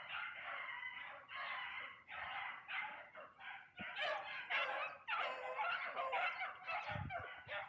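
Beagles baying in quick, overlapping cries, the voice of hounds running a rabbit's scent trail.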